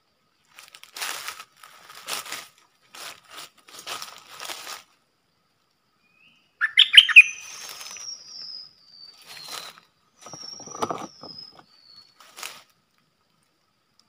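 Caged black-throated laughingthrush fluttering and shuffling in its bamboo cage, a few short rustles of wings. About halfway through it gives a loud burst of rapid song notes, then thin high whistles gliding down in pitch, twice, with more fluttering between.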